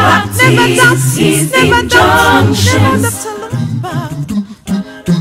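Music: a gospel song with voices singing over a steady low bass line, dipping briefly near the end.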